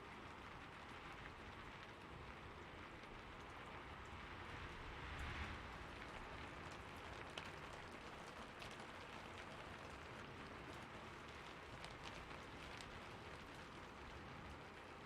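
Quiet, steady rain falling on a rooftop: an even hiss with scattered sharp drop hits. It swells briefly about five seconds in.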